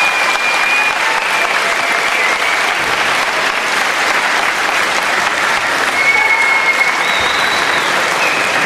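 Large arena crowd applauding steadily, with a few brief high held tones rising above the clapping.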